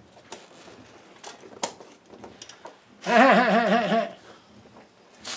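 Steel cross-link tyre chain clinking and rattling as it is worked by hand onto a compact tractor's rear tyre. About three seconds in, a loud wavering voice sound lasts about a second.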